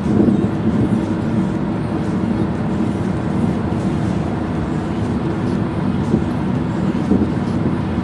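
Steady road and engine drone of a car being driven, heard from inside the cabin.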